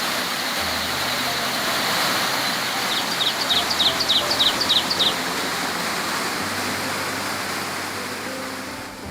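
Water rushing steadily, with a bird singing a quick trill of about nine high notes around the middle.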